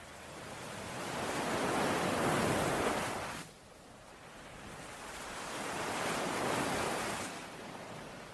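Ocean waves breaking and washing onto a shore, two waves in turn. The first builds over about two seconds and cuts off suddenly about three and a half seconds in; the second swells and fades away near the end.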